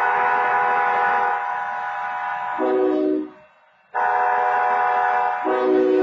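Train horn blowing two long blasts of a steady multi-note chord as a grade-crossing warning. The first lasts about three seconds and the second starts about four seconds in, with a lower set of notes joining near the end of each blast.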